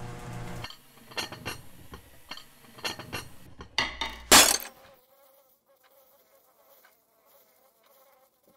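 A low mechanical rumble from a closing garage door stops after a moment. A run of clicks, knocks and clinks from kitchen machinery and dishes follows, peaking in a short, loud hiss about four seconds in. After that only a faint buzz remains.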